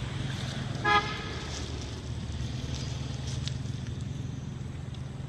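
A short single beep of a vehicle horn about a second in, with two tones sounding together, over a steady low hum.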